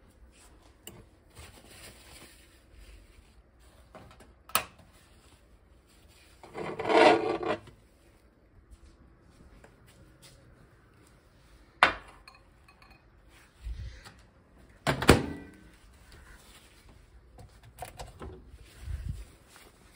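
Scattered kitchen handling sounds: a few sharp clicks and knocks, such as a metal fork against a glass bowl, and a scraping rustle lasting about a second, roughly seven seconds in.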